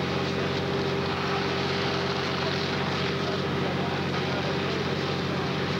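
Fire engine pump engines running at a steady drone under the rush of hose streams spraying water.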